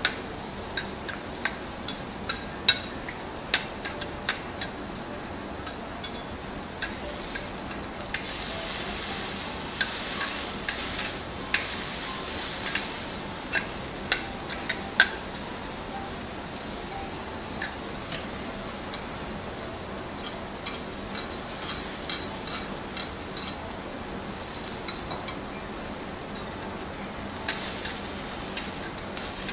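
Food sizzling on a flat steel griddle, with sharp clicks and scrapes of metal spatulas striking the plate. The sizzle swells louder for several seconds about a third of the way in, and again briefly near the end.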